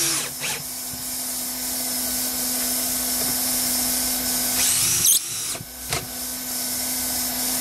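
Cordless drill-driver driving screws through an aluminum pipe-flashing flange into a roof deck: one run of motor whine ends just after the start, and a second winds up in pitch about five seconds in, stopping with a sharp clack followed by a couple of knocks. A steady low hum runs underneath.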